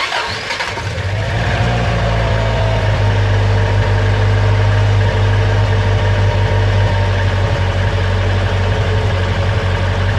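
Toyota AE86's four-cylinder engine idling steadily, heard from underneath at the exhaust joint between the pipe and the catalytic converter, which is fitted with new homemade gaskets. The sound comes in suddenly at the start, with a brief rise in pitch before it settles. It is a test of the exhaust-leak repair; the owner judges that only a small leak remains, way better than before.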